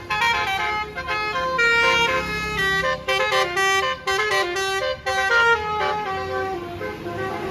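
A bus's Basuri 'telolet' musical air horn playing a quick multi-note tune, its notes changing pitch every fraction of a second with short breaks between phrases.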